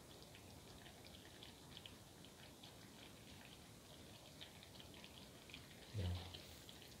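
Sardines in a coconut gravy simmering in a pan, faint bubbling with small scattered pops. A brief low thump about six seconds in.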